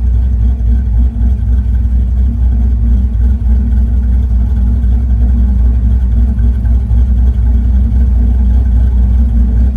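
Car engine idling steadily while it warms up to operating temperature.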